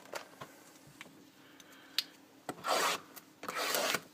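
Trading cards and their packaging handled on a table: a few light clicks, then two rasping swishes of card or wrapper sliding and rubbing, about a second apart near the end.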